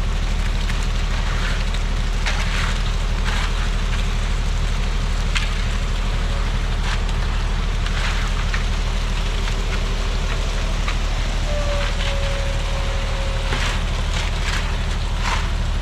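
A heavy engine running steadily at constant speed, with short irregular scrapes and clicks over it.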